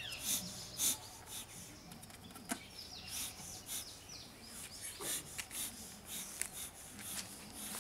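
Beekeeping smoker's bellows being pumped: a string of short, airy puffs at irregular intervals, with small birds chirping in the background.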